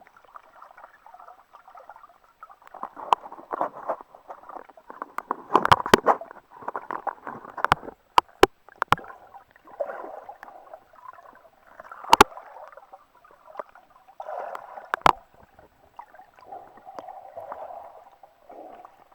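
Sea water splashing and gurgling in uneven surges as a person swims, with several sharp clicks and knocks among the splashes.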